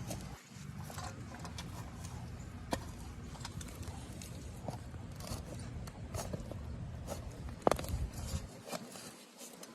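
A garden shovel digging into soil, with scattered scraping and crunching and a sharp strike about three seconds in and again near the end, over a low rumble that stops shortly before the end.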